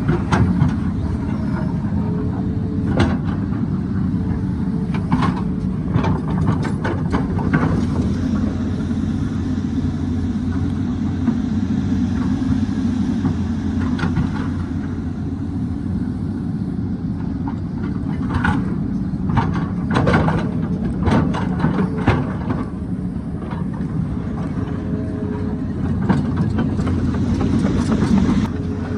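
Hydraulic excavator's diesel engine running steadily under load, with scattered knocks and clatters as the bucket works against rock, several close together in the middle and later part.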